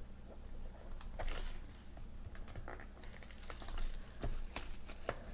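Hands opening a box of trading cards and handling its packaging: scattered crinkling and rustling with many light, irregular clicks.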